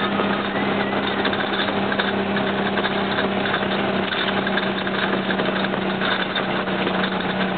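An old vehicle's engine running steadily, heard from inside the cab while driving, as a constant low hum under a noisy drone.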